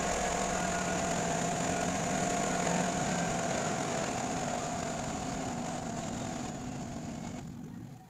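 Chevy Silverado pickup engine idling just after a cold start, steady with a thin high whine, slowly getting quieter. The sound cuts off near the end.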